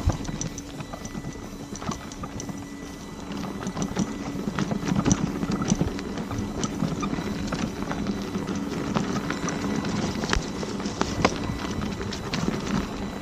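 Begode electric unicycles rolling over a bumpy dirt trail strewn with leaves. The tyres rumble over the ground with many irregular clicks and knocks from the bumps.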